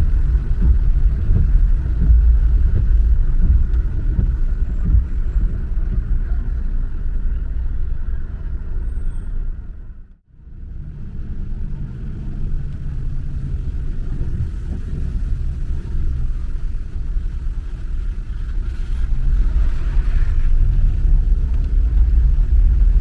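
Car driving: a steady low road and engine rumble. It fades briefly to near silence about ten seconds in, then comes back.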